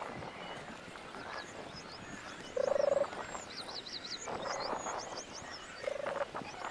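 A frog croaks twice, each a short pulsing call about three seconds apart. Small birds chirp quickly in between.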